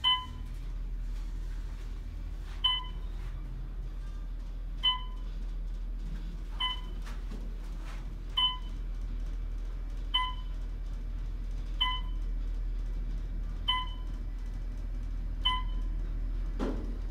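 Traction elevator car travelling up with a steady low hum, while a short electronic beep sounds nine times, about every two seconds.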